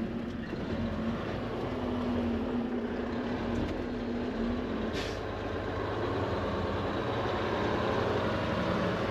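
Semi-truck's diesel engine running steadily, heard from inside the cab, with one short hiss about five seconds in.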